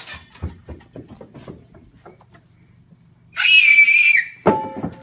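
A shrill, high-pitched scream of about a second, starting a little past halfway, as a hidden person jumps out at someone. About half a second after it ends comes a sharp bang with a brief ringing tail; before the scream there are only scattered faint knocks.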